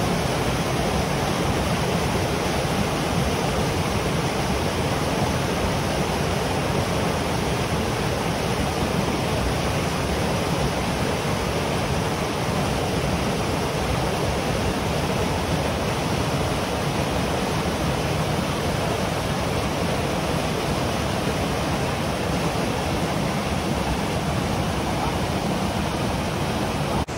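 Small waterfall and rocky mountain stream: white water tumbling over boulders in a steady, unbroken rush.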